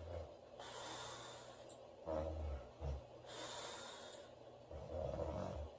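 A sleeping woman snoring: two low snores, about two seconds in and again near the end, with airy breathing between them.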